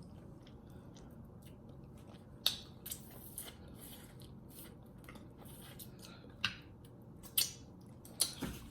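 Close-miked chewing and biting of a person eating, soft wet mouth clicks scattered over a quiet background, the sharpest about two and a half seconds in and again near seven and a half seconds.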